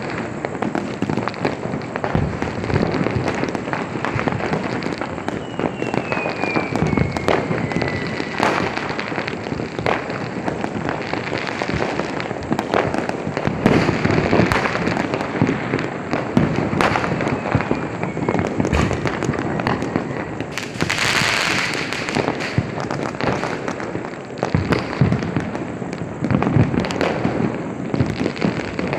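Many firecrackers and rockets going off in a dense, continuous crackle of pops and bangs. A falling whistle comes about six seconds in, and a loud hiss lasting about a second comes about two-thirds of the way through.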